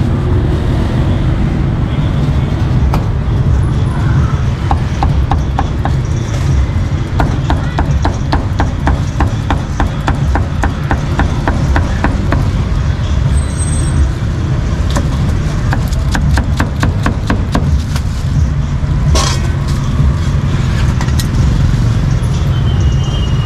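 Meat cleaver chopping meat on a thick round wooden chopping block: a run of quick, even chops, about three or four a second, for several seconds, then a few scattered chops. A steady street-traffic rumble runs underneath.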